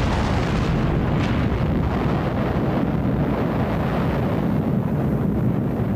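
Atomic bomb test explosion: a steady, heavy rumbling roar that carries on without letup after the blast, deepest at the low end.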